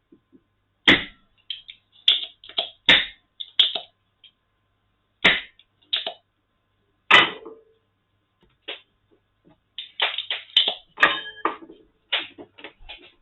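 Spring-loaded solder sucker (desoldering pump) being cocked and fired over and over, each release a sharp snap, with lighter clicks of handling between. Four strong snaps come about two seconds apart, then a quicker run of clicks and snaps near the end. It is being used to suck solder off socket contacts and is not clearing them well.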